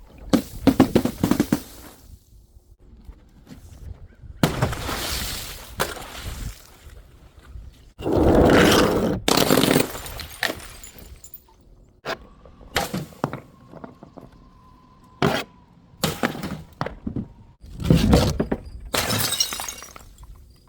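Glass bottles and jars breaking: several separate crashes of shattering glass spaced a few seconds apart, the bigger ones followed by a second or two of pieces rattling and tinkling.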